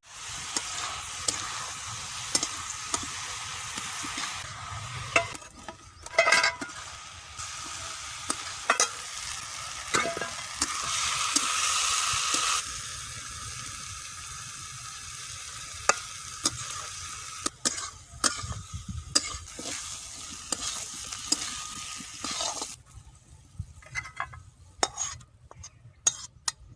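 Cabbage frying and sizzling in a pan while it is stirred, with frequent clicks and scrapes of a utensil against the pan. The sizzle drops away about 23 seconds in, leaving a few scattered clicks.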